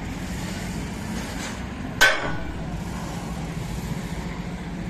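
A single sledgehammer blow on steel about two seconds in, a sharp metallic clang with a brief ring, knocking a bucket pin out of a JCB 3DX backhoe's bucket linkage. A steady low engine hum runs underneath.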